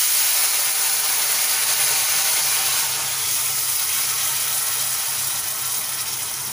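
Water poured into a hot stainless steel pan of ghee-roasted broken wheat sizzles loudly as it hits the hot ghee. It makes a steady hiss that slowly eases.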